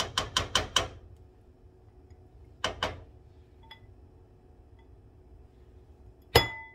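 A glass bowl and silicone spatula knocking together as chopped ham is tapped out of the bowl into a skillet: five quick sharp taps in under a second, then two more about two seconds later. Near the end comes one louder clink with a brief ring.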